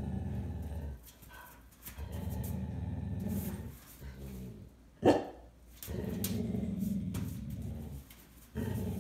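Siberian husky growling in play: several long low rumbling growls broken by short pauses, with one sharp bark about five seconds in.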